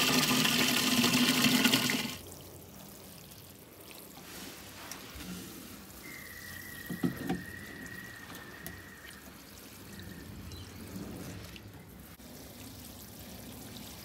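Water from an outdoor garden tap running into a plastic milk-jug watering can, loud until it stops about two seconds in. After that comes quieter pouring and trickling as the jug is tipped over potted plants.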